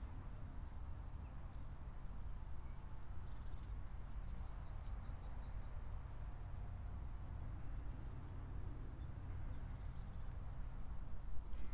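Small birds singing outdoors: short high trills and chirps come three times, over a steady low rumble.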